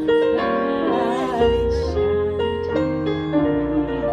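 Band music: sustained keyboard chords changing every second or so over a bass line.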